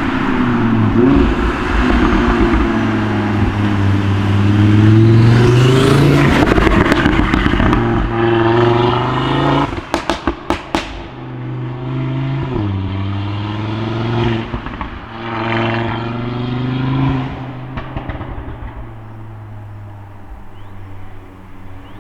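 Audi RS3 8V's turbocharged five-cylinder accelerating hard with rising revs and gear changes, then a quick string of sharp overrun pops and bangs about halfway through from the remapped exhaust with its downpipe and sports cat. It pulls again with more crackles and fades away near the end.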